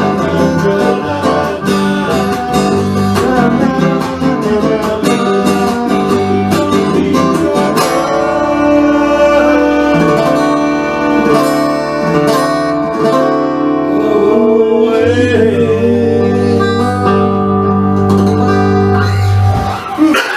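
Acoustic guitar music: strummed chords, then held notes, ending on a long sustained chord that stops just before the end.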